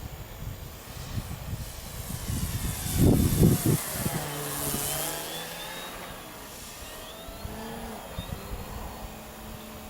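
Radio-controlled Sbach 342 aerobatic model plane flying past, its motor and propeller tone falling in pitch as it passes. Gusts of wind buffet the microphone about three seconds in.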